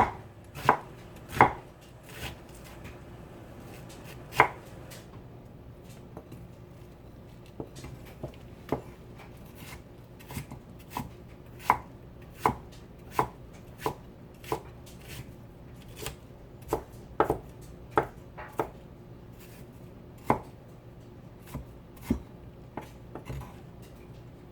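Kitchen knife chopping on a cutting board in irregular single strokes, about one or two a second, with a couple of short pauses, over a faint steady hum.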